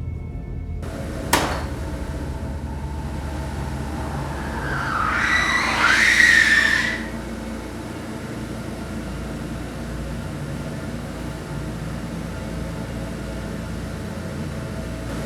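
A sharp click about a second in, then a door creaking open in a long squeal that rises and falls in pitch for about two seconds, over a steady low hum.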